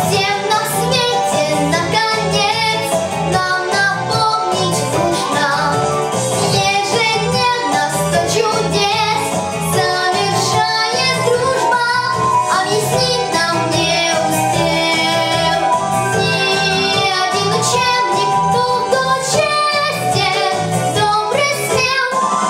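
A girl singing a song in a child's voice over an instrumental accompaniment with a steady beat.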